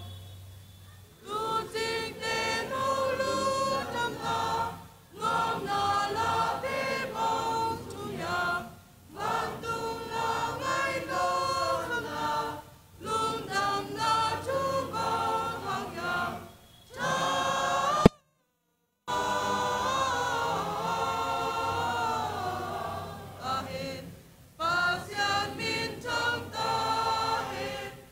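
Youth choir singing a song in Zomi together, in phrases separated by short breath pauses. About two-thirds of the way through, the sound cuts out with a click for about a second, then the singing resumes.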